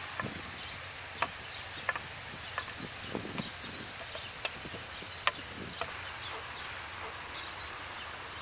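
Diced onion and garlic sizzling steadily in hot oil in a cast iron pan over an open wood fire, with scattered sharp pops and crackles every second or so.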